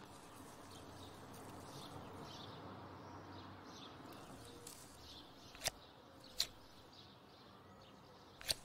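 Quiet outdoor ambience with faint bird chirps. Three sharp clicks break in, two close together a little past halfway and one near the end.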